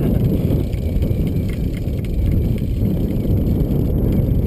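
Wind buffeting the microphone: a dense, uneven low rumble with no steady pitch.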